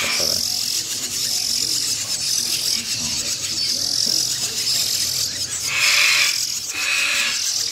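Hand-fed nestling Bali mynas and other myna chicks begging for food in a box: a constant chorus of raspy, hissing calls repeated over each other, with a couple of louder calls about six and seven seconds in.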